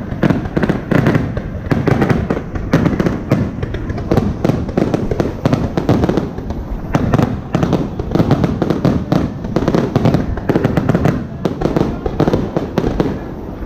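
Aerial firework shells bursting one after another, a dense unbroken run of bangs and crackles, several a second.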